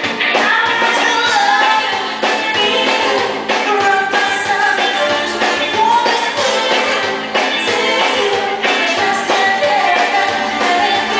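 Live band playing a song, a woman singing lead through a microphone over guitars and drums. The sound is thin, with almost no bass.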